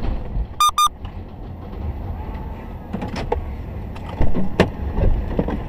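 Two short, high electronic beeps about half a second in, over the low rumble of a vehicle stopped in traffic. A few sharp clicks and knocks follow.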